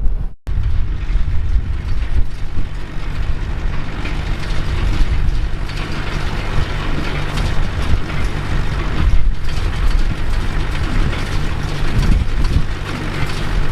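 John Deere 2140 tractor's diesel engine running steadily under a continuous clatter of chains and gears from a John Deere 456 round baler working. The sound cuts out briefly about half a second in.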